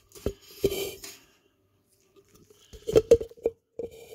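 Light clinks and knocks of small metal parts and glassware being handled: crocodile-clip leads, batteries and a glass jug in a stainless-steel sink. A brief rustle comes about half a second in, then a quick cluster of clinks about three seconds in.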